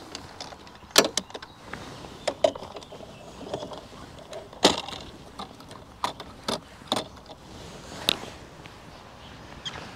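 Gear being rummaged through in the open rear boot of a camper van: about ten irregular sharp clicks, knocks and clatters, the loudest about halfway through.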